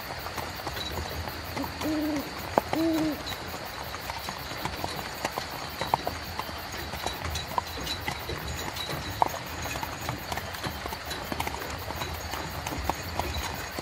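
Horse-drawn carriage on the move: a horse's hooves clip-clopping in an uneven run of sharp clops over a steady low rumble of the wheels. About two seconds in, two short low calls with an arched pitch sound briefly.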